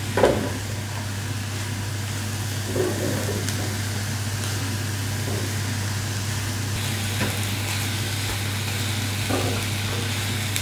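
Capsicum strips and button mushrooms sizzling in a nonstick frying pan while a plastic spatula stirs them, with a few brief scrapes of the spatula against the pan, over a steady low hum.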